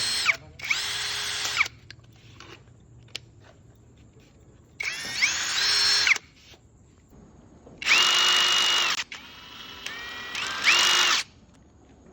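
Brushless cordless drill motor run in short trigger bursts: each time the whine rises as it spins up, holds steady for about a second and cuts off. Near the end it runs at a lower, softer speed for about a second before speeding up again.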